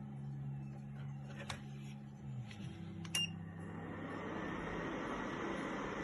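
Ceramic fan heater: a low hum with a few light clicks, a short electronic beep from its controls about three seconds in, then the steady rush of its fan blowing.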